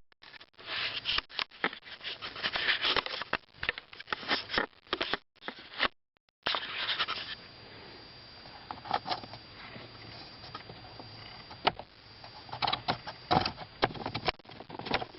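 Scraping, rustling and clicking of hands working the two parts of a dirty cabin air filter out of its plastic housing. Dense handling noise breaks off suddenly about six seconds in, then quieter sounds with a few scattered clicks follow.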